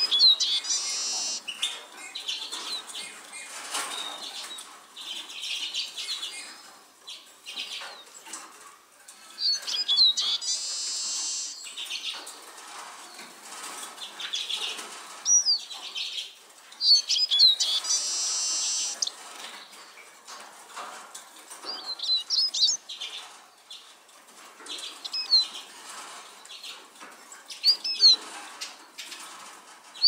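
Eurasian siskin singing: several longer, rapid twittering phrases with short, sharp whistled notes that rise and fall between them, repeated every few seconds.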